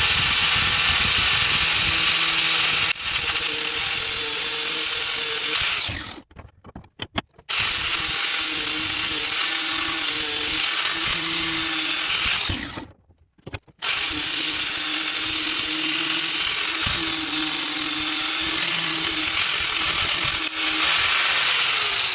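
Angle grinder with a flap disc grinding the corners of a steel chisel's head round, in three passes broken by two short stops about six and thirteen seconds in. Near the end the grinder is switched off and its whine falls as it spins down.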